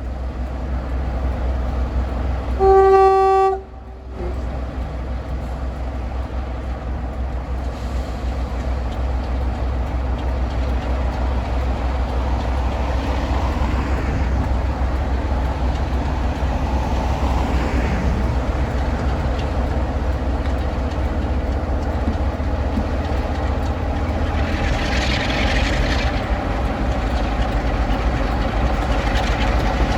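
Diesel locomotive's engine running with a steady low drone, with one short horn blast about three seconds in; the engine grows a little louder toward the end.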